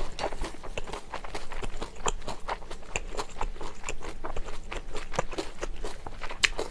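Close-miked chewing of a mouthful of tofu-skin wrap filled with jingjiang pork shreds and raw vegetables, made up of many short, wet mouth clicks a few times a second.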